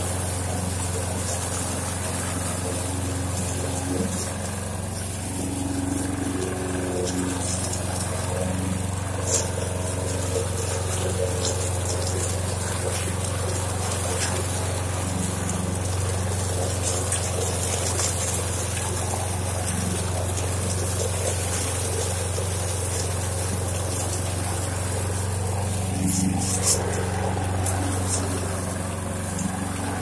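Walk-behind gas lawn mower's small single-cylinder engine running steadily under mowing load, a constant low hum.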